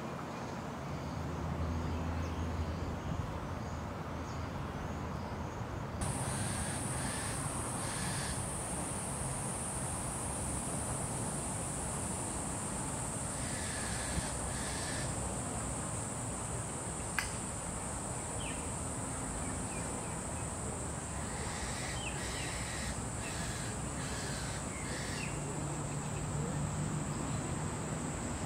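Groups of harsh bird calls, several times, over a steady high-pitched insect buzz that starts about six seconds in and a low steady hum.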